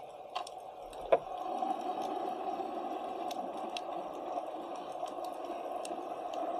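Underwater ambience picked up by a submerged camera: a steady muffled water noise, with scattered sharp clicks and one louder click about a second in.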